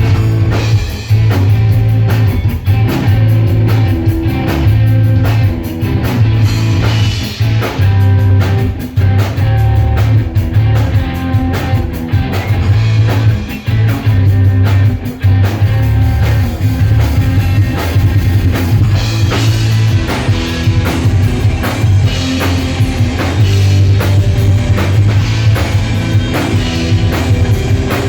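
Rock band playing live on stage: drum kit, electric guitar and bass, with a steady driving beat and a strong bass line.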